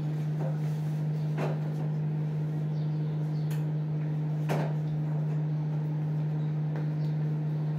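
Microwave oven running with a steady low hum while it heats date-palm jaggery to soften it. A few light clicks and knocks of kitchen utensils sound over it, the loudest about four and a half seconds in.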